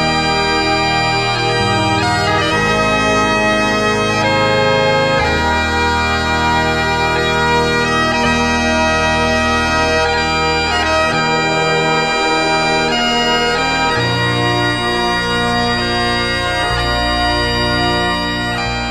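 Bagpipe music: a slow melody of long held notes over a steady drone, starting to fade out at the very end.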